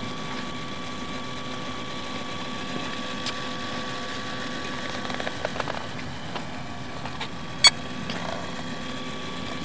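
A steady machine hum made of several fixed tones, unchanging throughout, with one sharp click about three-quarters of the way in.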